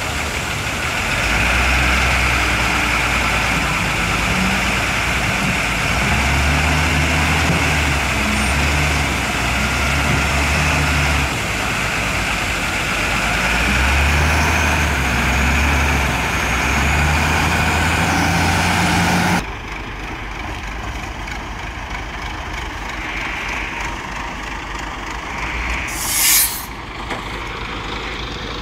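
Heavy diesel engine running, its low note rising and falling several times as it works. After a cut, a quieter truck engine runs steadily, with one short burst of air hiss near the end, like an air brake.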